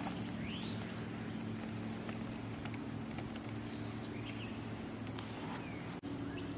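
Outdoor lake ambience: a low steady hum, a thin high steady drone like insects, and a few short bird chirps.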